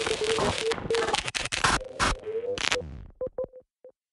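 Electronic logo sting: crackling, glitchy static over a steady tone for nearly three seconds, then four short beeps that fade away.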